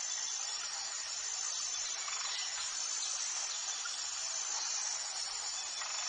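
Steady high-pitched chorus of insects in forest, with an even hiss underneath and no breaks.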